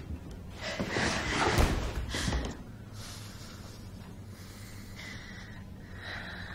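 Close, noisy breathing: a loud drawn breath about one to two and a half seconds in, then softer breaths over a low steady hum.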